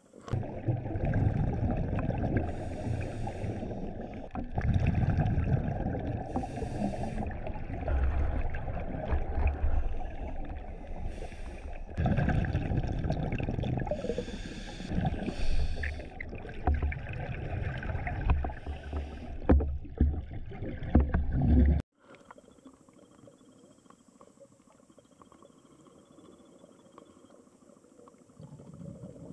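Scuba diver breathing through a regulator, heard underwater: surging rumbles of exhaled bubbles with hissy inhales between them. It cuts off sharply about two-thirds of the way through, leaving only a faint underwater hush.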